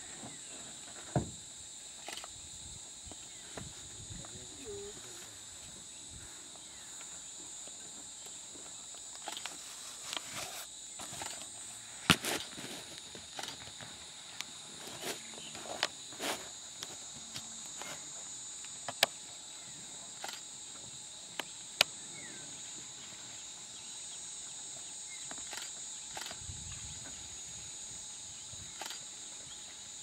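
Steady high-pitched insect drone in the dry grassland, with a few sharp clicks and knocks scattered through it.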